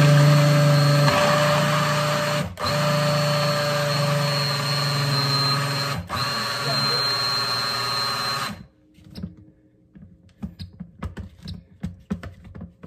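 Small personal blender running, its motor grinding cooked apple and prune into jam. The motor cuts out for a moment twice and stops about eight and a half seconds in, followed by a few light knocks as the cup is handled.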